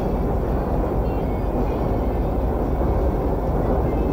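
Steady rumbling running noise of a passenger train, heard from aboard.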